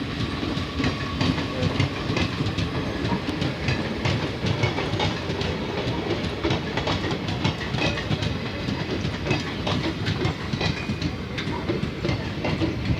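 A passenger train running on the track, its wheels clattering steadily over the rails with many irregular clicks and knocks.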